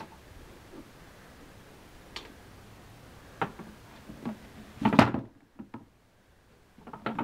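A few separate knocks and clicks from a model speedboat hull being handled and turned over by hand, the loudest about five seconds in, followed by a moment of near silence.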